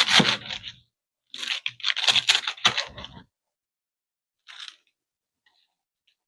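Knife chopping through iceberg lettuce on a cutting board, crisp crunching in quick strokes: a short burst at the start, a longer run of strokes a second later, then one faint short burst near the end.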